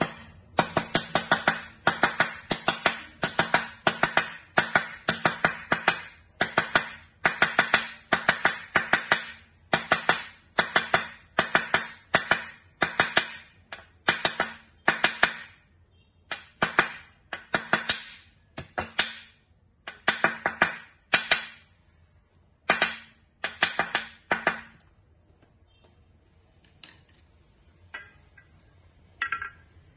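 Steel claw hammer tapping a ball bearing into its seat in an exercise bike's bearing housing. Quick runs of ringing metal strikes come about once a second, then give way about 25 seconds in to a few scattered lighter taps.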